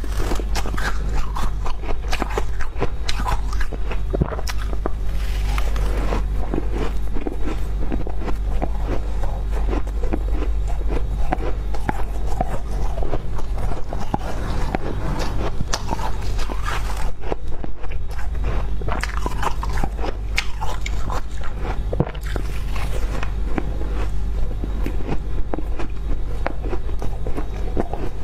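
Frost being scooped and bitten into, with dense crunching and crackling throughout over a steady low hum.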